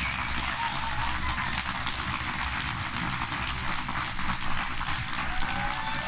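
Audience applauding: many hands clapping steadily, with a few voices calling out near the end.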